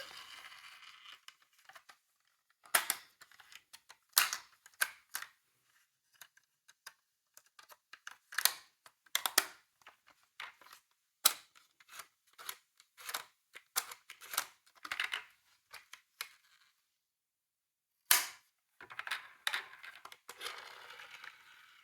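Irregular sharp clicks and clacks of small toy cars being handled and knocking together, with a brief pause near the end before a final cluster.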